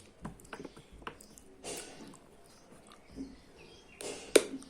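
Close-up eating sounds: chewing and lip smacking, with scattered small clicks and one sharp click near the end.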